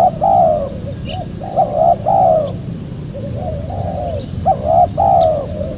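Spotted dove cooing its repeated multi-note call, one phrase about every two and a half seconds, over a steady low background rumble.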